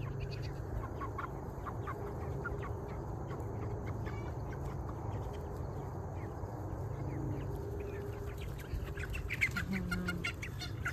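A flock of white meat chickens clucking and peeping in short scattered calls, which grow busier and louder near the end as a dog runs among them. A steady low rumble sits underneath.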